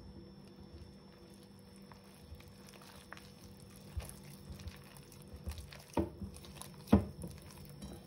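Flour and liquid being mixed into a yeast dough in a bowl: faint scraping and stirring, with a few short knocks against the bowl, the loudest near the end.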